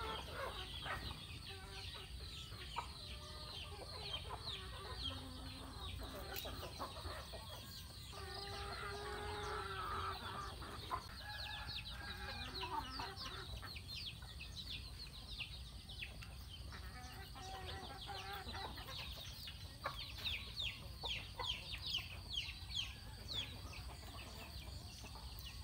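Chickens clucking softly, with many short high chirps repeating throughout, coming thickest near the end.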